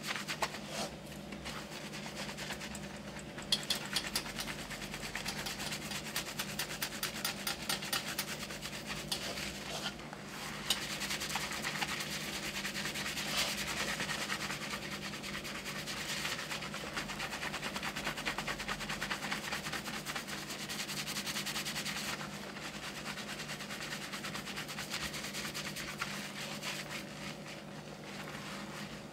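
Hands scrubbing shampoo lather into a man's hair and scalp: a fast, rhythmic rubbing of soapy hair that swells and eases in passes.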